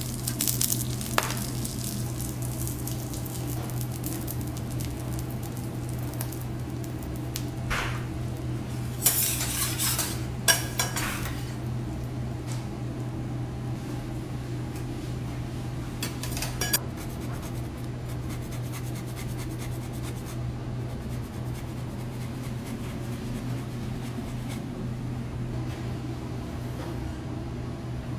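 Metal cooking tools and ceramic plates clinking and clattering on a steel teppanyaki griddle counter, with the loudest run of clatters about a third of the way through. Light sizzling is heard near the start, and a steady low hum runs underneath.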